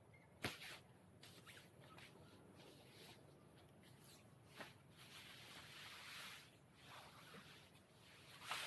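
Faint rustling and swishing of a pop-up tent's nylon fabric being twisted and folded down, with a sharp tick about half a second in.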